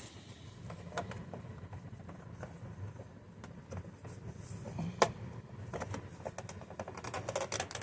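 Scattered light clicks and taps of plastic vacuum headlight parts being handled, with one sharper click about five seconds in and a quick run of clicks near the end, over a low steady hum.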